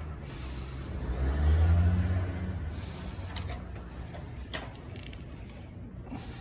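Low motor-vehicle engine rumble that swells to its loudest about two seconds in and then fades, with a few short sharp clicks later on.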